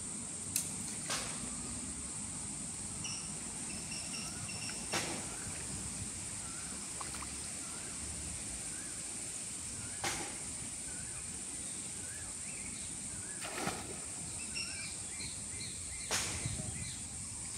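Riverside ambience: a steady high-pitched insect drone with a small bird chirping repeatedly, and a few short splashes in shallow water.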